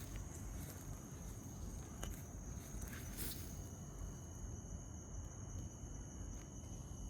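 Crickets trilling steadily and high-pitched, a second lower trill joining about halfway, over a low rumble on the microphone. A couple of faint clicks about two and three seconds in.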